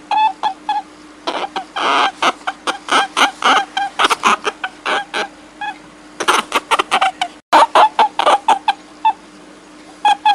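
Rapid runs of short, squeaky animal calls, several a second in bursts, over a faint steady hum, with a brief break about seven seconds in.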